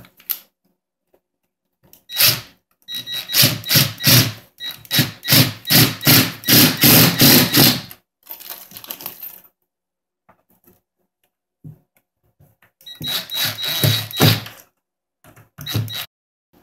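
Cordless power drill driving screws into fibreboard in bursts: a long run of pulsing whirring about two seconds in, then a shorter run and a brief one near the end.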